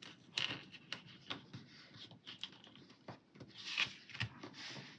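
Fingers tapping and pressing stickers down onto a paper planner page, with scattered light clicks and paper rustles and a longer brushing rub of paper near the end.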